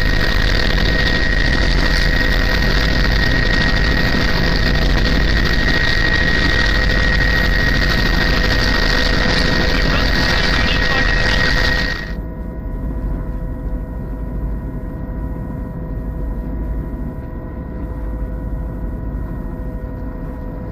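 Helicopter cabin noise picked up by a phone's microphone: a loud, steady rush of rotor and engine noise with a steady high whine. About twelve seconds in it abruptly turns quieter and duller, the high end cut away.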